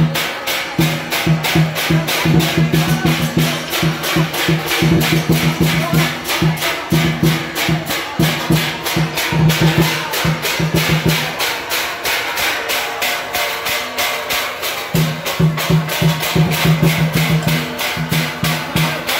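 Procession percussion: a drum and hand percussion keeping a fast, even beat of several strokes a second, over a low steady tone that drops out for a few seconds past the middle.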